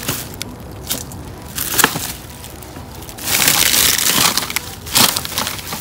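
Plastic bags and film crinkling and rustling as a hand digs through dumpster contents, with a couple of sharp knocks; busiest from about three to five seconds in.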